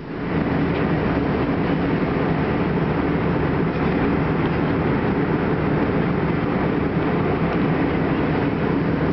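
Steady cabin noise of a jet airliner in cruise, the engine and airflow noise heard at a window seat, deep and even.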